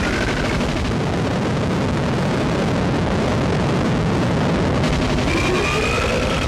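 Gorenoise (harsh noise) recording: a dense, unbroken wall of distorted noise at a steady level. About five seconds in, whining tones rise in pitch over it.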